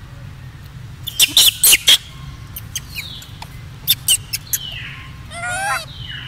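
Young monkeys squealing: a quick run of loud, sharp shrieks about a second in, short squeaks and falling calls around four seconds, then one wavering squeal near the end.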